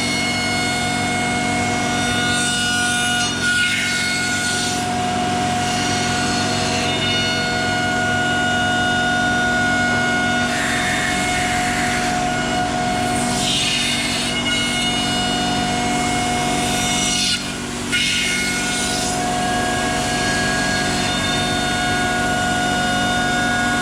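CNC router spindle running with a steady multi-tone whine while the bit cuts wood, the cutting noise swelling and fading over and over as the tool moves along its path. The level dips briefly about 17 seconds in.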